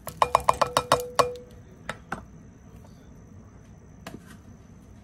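A measuring cup knocked rapidly against the rim of a glass mixing bowl to shake out oats: about eight quick ringing taps in the first second, the bowl ringing, then two softer knocks about two seconds in.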